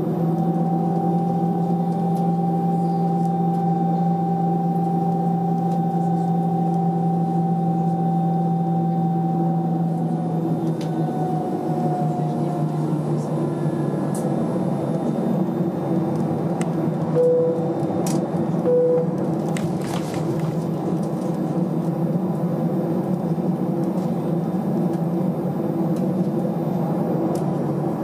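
Airbus A319 cabin noise while taxiing: the engines' steady hum and rumble, with a held tone that fades out about twelve seconds in. Two short beeps sound close together about seventeen seconds in.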